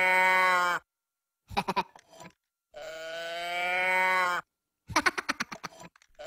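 A cow-print moo box toy being tipped, giving a long, slightly rising "moo" that cuts off abruptly, twice, with a third starting at the very end. Short bursts of quick, high cartoon giggling come between the moos.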